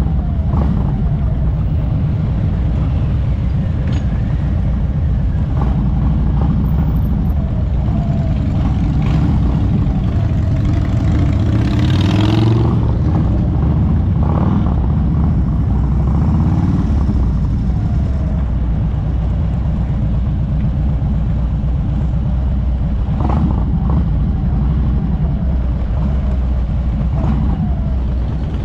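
Harley-Davidson motorcycle engine running steadily at low speed, heard from the rider's seat, with other motorcycles' engines around it. A brief louder rush of noise comes about twelve seconds in.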